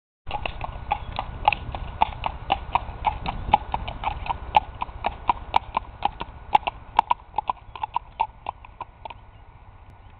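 Hoofbeats of a ridden palomino Tennessee Walking Horse gelding, sharp and even at about four a second. They stop about nine seconds in as the horse halts.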